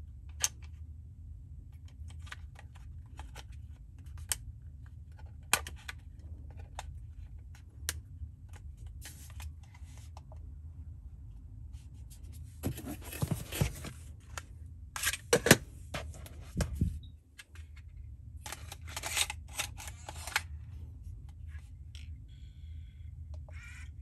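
Handling of a Sony MZ-1 MiniDisc recorder: scattered sharp plastic-and-metal clicks as a copper contact plate is seated in the battery compartment, then a denser run of clicking and scraping from the case and lid about halfway through. A faint high whine comes in near the end.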